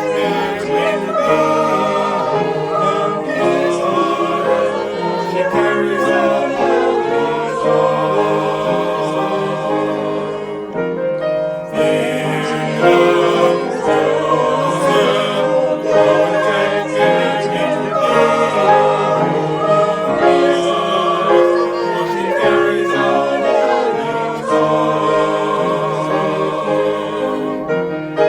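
A choir singing a sacred choral piece, many voices in harmony, with a short easing between phrases about eleven seconds in.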